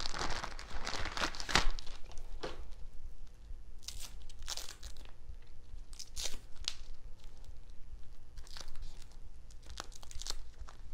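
Packaging wrapper crinkling and tearing as a coiled USB-C cable is pulled out of it by hand. The rustling is densest for about the first two seconds, then comes in short separate crinkles every second or two.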